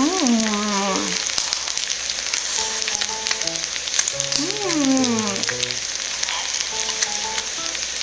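Pork sizzling steadily on an electric grill pan, under light background music: a simple stepped melody with two swooping glides, one at the start and one about four and a half seconds in.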